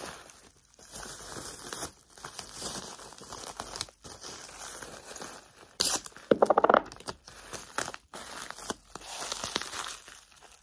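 Bubble wrap crinkling and rustling as tableware is wrapped by hand. About six seconds in comes a short, loud rasp of brown packing tape being pulled off its roll.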